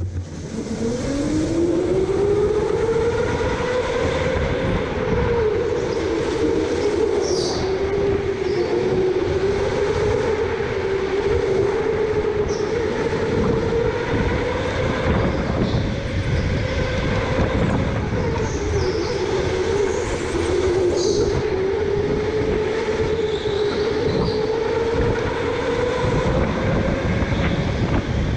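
Electric go-kart's motor whining under way, climbing in pitch over the first couple of seconds and then rising and falling with speed through the corners, over a steady rumble from the kart on the track. A few brief high squeaks come through now and then.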